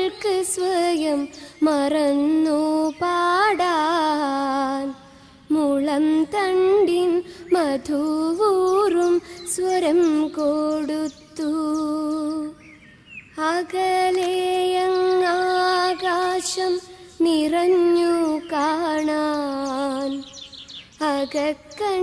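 A high female voice singing a slow, melodic song in phrases, with long held notes that waver in pitch and short pauses between lines.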